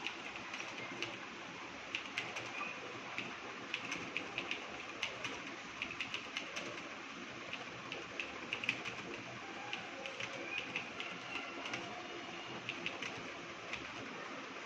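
Computer keyboard keys being typed on, irregular runs of quick clicks with short pauses between words, over a steady background hiss.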